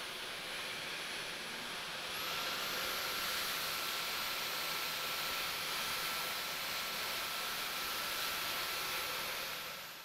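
Dyson V12s Detect Slim Submarine cordless stick vacuum running: a steady rush of air with a high whine from the motor. About two seconds in, the motor speeds up, its whine rising slightly in pitch and the sound growing a little louder. It fades out at the very end.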